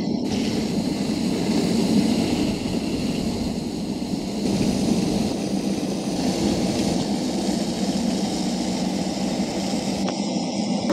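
Truck-mounted stone slinger's engine and throwing conveyor running steadily while it flings gravel, a continuous mechanical noise that changes abruptly several times.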